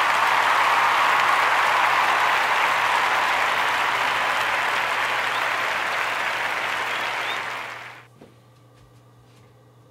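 Crowd applause, a dense steady clapping with a brief whistle near the end, falling away quickly about eight seconds in and leaving only a faint electrical hum.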